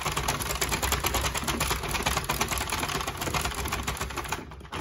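A 48-pin Sentro plastic circular knitting machine being cranked by hand: a fast, steady clatter of its plastic needles and gear ring, stopping shortly before the end.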